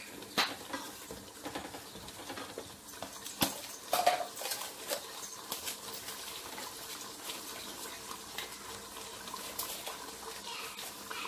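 Pots cooking on a gas stove: a soft, steady crackle and bubbling from the pan and stew pot, with a few sharp knocks of utensils and containers in the first four seconds.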